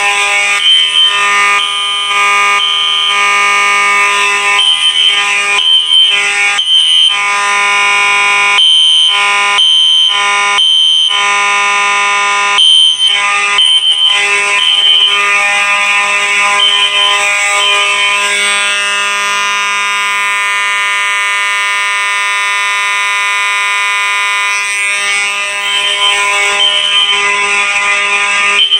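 Fire alarm horns sounding loudly together, a Harrington-rebranded Faraday 6226HS horn strobe and a System Sensor SpectrAlert Classic P1224MC horn strobe. A steady, harsh, buzzing horn tone runs through, with a higher tone switching on and off on top and brief, irregular breaks in the whole sound.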